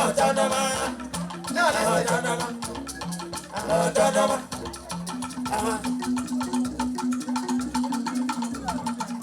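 Music with singing in short phrases over busy percussion and shakers. From about five seconds in the voices stop and the beat carries on alone.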